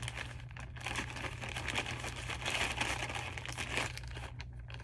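Thin clear plastic poly bag crinkling and crackling as it is handled in the hands.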